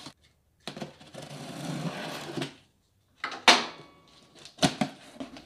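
Knife slitting the packing tape along the top of a cardboard box, a steady rasping cut lasting about two seconds. Then two short, sharp rips of tape and cardboard as the box is opened.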